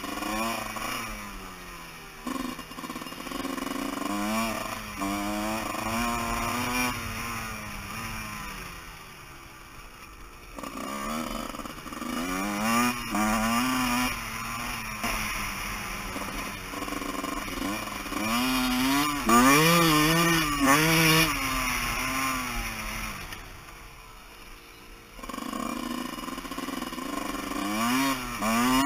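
Dirt bike engine revving up and down again and again as the rider works the throttle through the turns and straights, dropping back twice, about a third of the way in and near the end.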